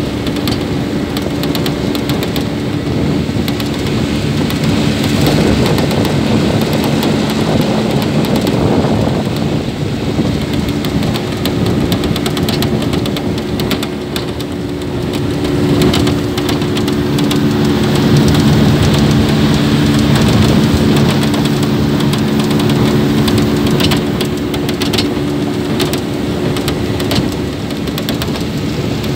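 A small boat's motor running steadily under way, with wind buffeting the microphone and water rushing and splashing along the hull.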